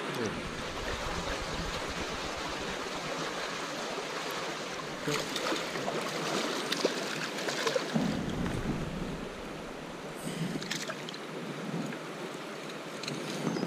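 Shallow stream water running steadily around wading legs, with wind rumbling on the microphone. About five to eight seconds in there is a run of sharp splashes as a released trout thrashes at the surface and swims off.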